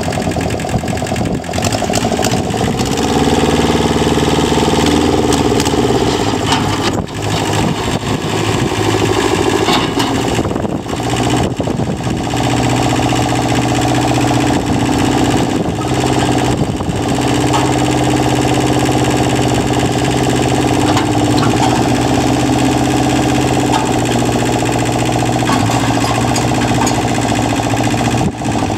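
Kubota L1501DT diesel tractor engine running, its speed rising and falling several times.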